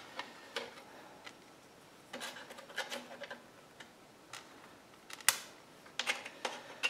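Light scattered clicks and ticks of small metal speed nuts and plastic tail light parts being handled and fitted, with one sharper click about five seconds in.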